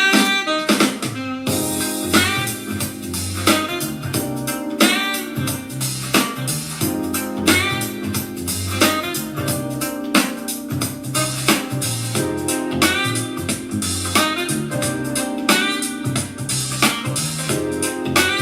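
Music with a steady beat and keyboard-like chords, played back through a portable Bluetooth speaker in a speaker sound test.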